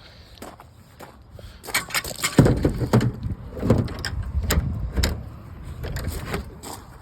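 A run of knocks and clatter from things being handled, over a low rumble that starts suddenly about two and a half seconds in.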